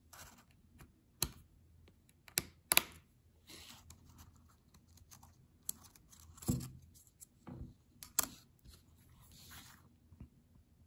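Small plastic and metal keyboard parts of a Surface Book 1 spacebar being handled and fitted: a few sharp clicks, the loudest about a second in, a close pair around two and a half seconds and one near eight seconds, between soft scraping and rustling.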